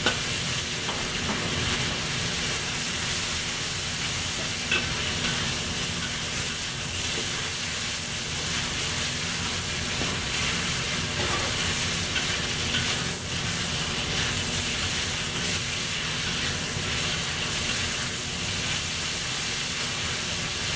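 Beef strips sizzling and frying in hot oil in a wok over a high flame, stirred with a metal spatula that clicks and scrapes against the wok a few times. The heat is high enough to sear the meat rather than let it go watery.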